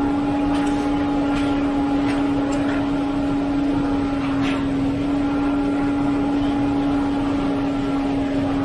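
Concrete pump truck's engine running at a steady, even drone while it pumps concrete through the hose, with a few faint clicks and scrapes from the crew's tools.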